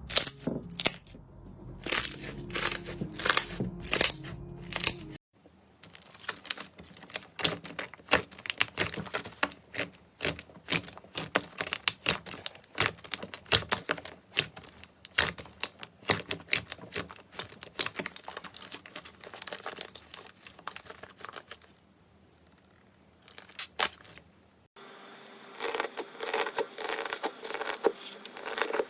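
Slime being squished and pressed by hand, giving rapid sticky crackling and popping clicks.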